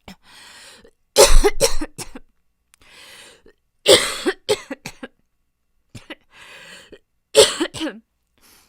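A young woman with a chronic cough coughing in repeated fits, each a quick cluster of harsh coughs, with breaths drawn in between. There are three main fits, about a second in, around the middle and near the end. Her cough is one that tests for tuberculosis, pneumonia and asthma have not explained.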